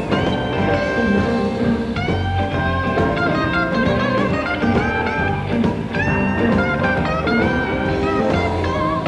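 Live blues band with a Stratocaster-style electric guitar playing a lead solo of held and bent single notes over the band's bass and rhythm.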